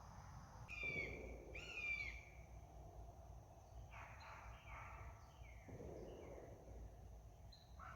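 Faint bird calls: two slurred calls about a second apart, then a run of shorter descending chirps, over steady outdoor background noise.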